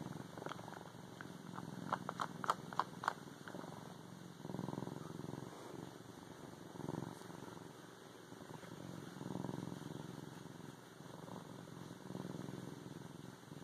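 Bobcat purring steadily, the purr swelling with each breath about every two and a half seconds. In the first few seconds there are sharp clicking, smacking sounds from her suckling on the fabric.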